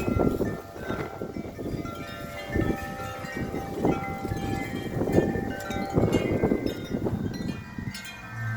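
Several wind chimes ringing together in strong, gusty wind, their tones overlapping and sustaining without a break. Wind gusts rumble on the microphone beneath them.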